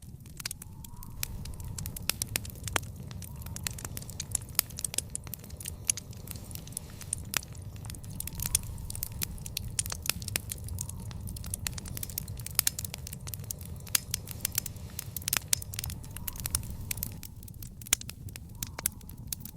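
Fire in a backyard fire pit crackling, with frequent sharp, irregular pops and snaps over a steady low rumble of the flames.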